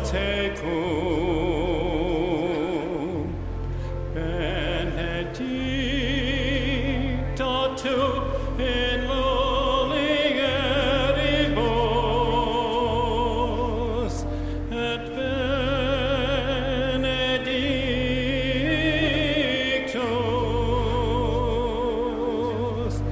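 Liturgical singing with strong vibrato over held low accompaniment notes that change every second or two.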